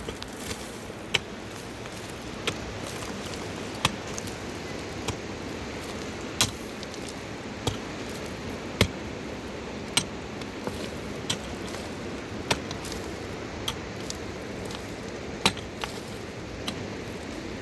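Sharp knocks at an even pace, about one every second and a quarter, over a steady rushing noise.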